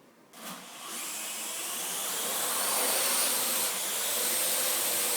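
Small Wi-Fi camera quadcopter drone's motors and propellers spinning up for take-off: a steady high whine that starts about a third of a second in, grows louder over the next two seconds, then holds.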